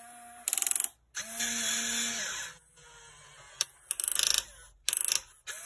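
Small electric motors and plastic gearboxes of a Huina RC excavator whirring in short bursts as it is driven, about four times, the longest lasting over a second with a steady whine.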